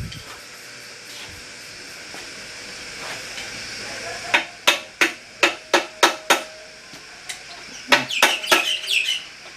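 Hammer tapping on steel axle parts: after a few seconds of quiet, a run of about seven sharp strikes at roughly three a second, then a second cluster of strikes with a metallic ring near the end.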